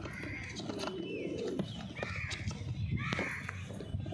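Domestic pigeons cooing, with a few sharp clicks of scissors clipping a pigeon's wing feathers.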